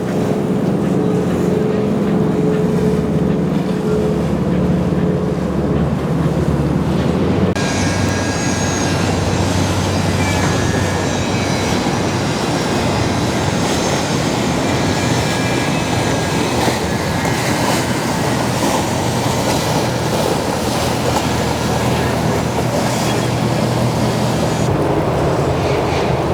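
Boat engines running steadily, with a steady low hum and rushing noise that change abruptly about seven and a half seconds in and again near the end.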